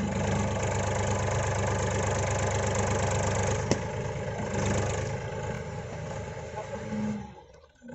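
Powertrac tractor's diesel engine running loudly while the tractor is stuck in mud, with one sharp clank about three and a half seconds in; the engine sound drops away suddenly about seven seconds in.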